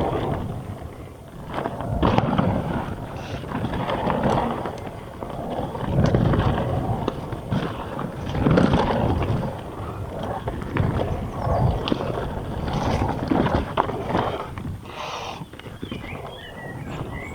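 Mountain bike descending a dry, loose dirt trail: the tyres roll over the dirt and the bike rattles over rough ground, the noise swelling and fading every second or two.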